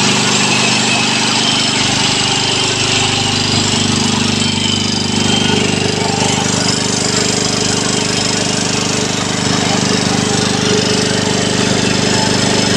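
J.P. Sauer WP151L air-cooled piston air compressor, driven by its electric motor, running steadily with a fast, even pulsing from its pistons.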